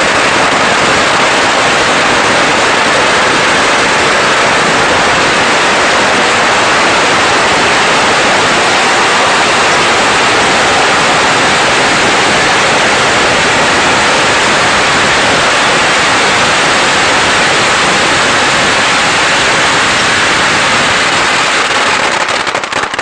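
A string of 16,000 firecrackers going off, the bangs so rapid that they merge into one loud, steady crackle. Near the end it starts to thin out into separate bangs.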